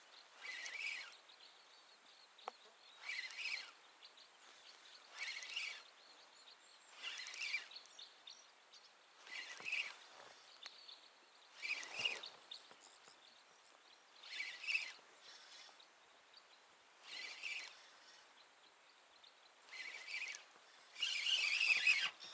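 Spinning reel cranked in short spells about every two seconds with pauses between: a stepped jig retrieve. A longer, louder spell of cranking comes near the end.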